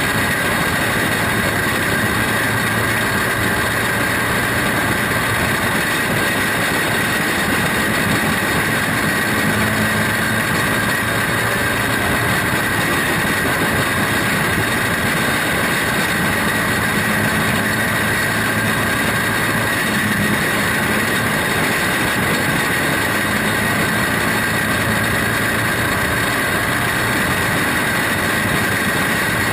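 Engine of a 120 Champ Lite dirt-track racing car running hard and steady through laps, heard close up from onboard with a loud, unbroken drone.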